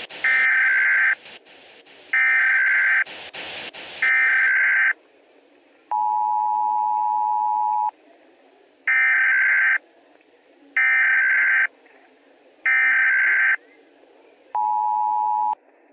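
Emergency Alert System signal tones. Three short, harsh data bursts come first, then a steady attention tone of about two seconds, then three more data bursts and a last short steady tone. Static crackle runs under the first few seconds.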